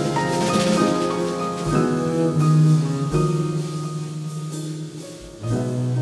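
Jazz piano trio playing: upright piano chords over held low double bass notes, bowed, with light drum kit and cymbal. The music thins out and drops quieter about four and a half seconds in, then swells back up near the end.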